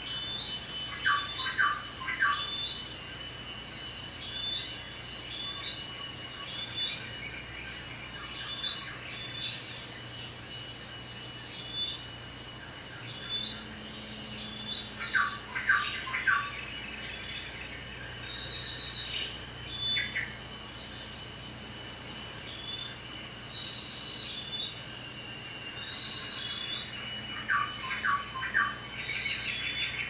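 Insects chirping in a steady, repeating pattern over a thin high tone, with three louder bursts of quick chirps: about a second in, midway, and near the end.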